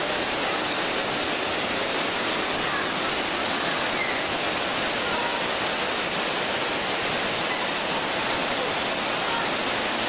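Waterfall pouring over rocks into a pool: a steady, unbroken rush of falling water.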